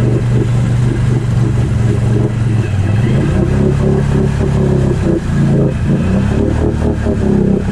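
Can-Am Outlander XMR 1000's V-twin engine running close to the microphone. About three seconds in the engine sound changes and becomes busier with revving, as a tracked vehicle starts pulling the mud-stuck ATV out on a tow strap.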